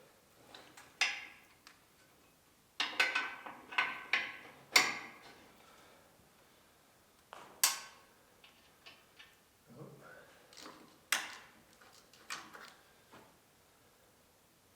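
Sharp metal clanks and clinks of hitch pins and linkage as a 5-foot Woods back blade is pinned onto a small tractor. There is one knock about a second in, a quick cluster of them around three to five seconds, then scattered single knocks.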